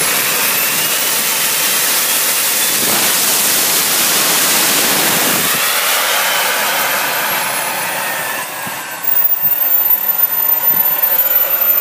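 Jetcat P20-SE miniature turbine jet engine running on a test stand: its high whine climbs in pitch near the start, holds, then falls away from about six seconds in. About nine seconds in, a louder, rougher rushing sound takes over.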